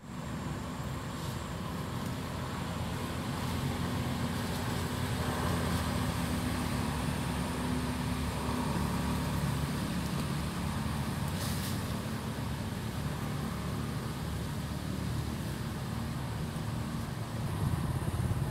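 Steady low rumble of road traffic, with a brief hiss about eleven seconds in.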